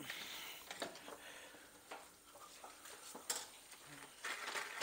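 Faint scattered clicks and knocks, with a short rustle near the end.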